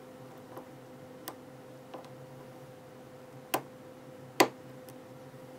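Sharp metallic clicks from a lock pick working the pin stacks of a six-pin oval lock cylinder under tension as the pins are re-set, about six clicks, the two loudest near the end. A faint steady hum runs underneath.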